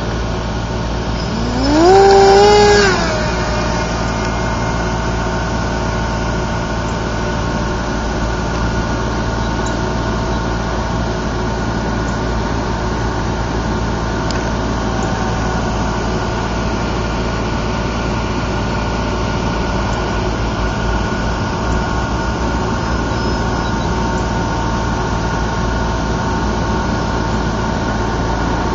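Electric motor and pusher propeller of a small RC foam airplane spooling up: a whine rising quickly in pitch about a second in, held briefly at full throttle, then fading about three seconds in. After that, a steady low rumble with faint steady tones.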